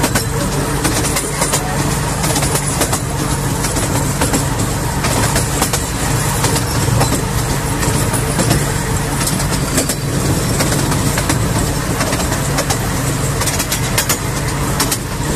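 Miniature-railway carriage running along the track: a steady rumble of wheels on the rails, with frequent short clicks.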